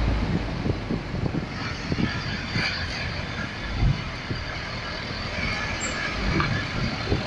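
Engine and road noise of a Mahindra Bolero Maxi Truck pickup driving slowly, heard from inside the cab, with a few low thumps.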